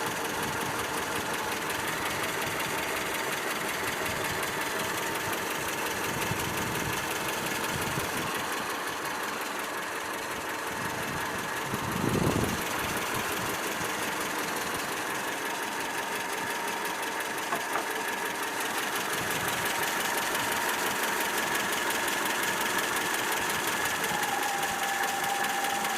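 ZMZ-402 inline-four petrol engine idling cold and running steadily, with a brief louder swell about halfway through. Its knock, which the owner traced to play between the piston pins and connecting rods, is not yet plainly heard while the engine is cold.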